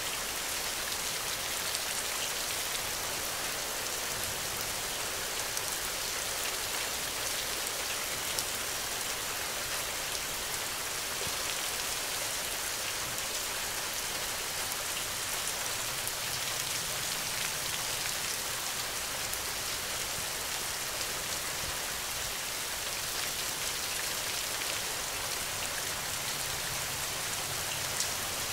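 Steady rain: an even, high hiss of falling rain with scattered sharper drop ticks.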